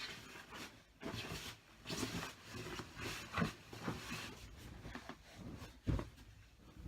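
Bedding fabric rustling and swishing as sheets and covers are pulled off a bed, in irregular bursts, with a single dull thump about six seconds in.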